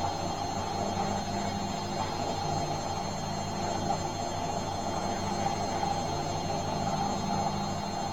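Bosch washing machine running with a steady, even hum.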